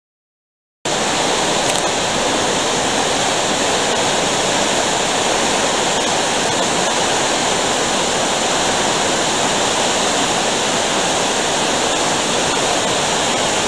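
Steady rush of flowing water, cutting in abruptly about a second in after silence.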